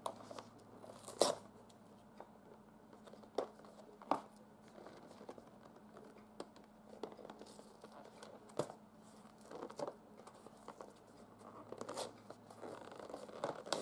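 Cardboard box being pried open at its bottom flap by hand: scattered faint scrapes, taps and short tearing sounds of the card.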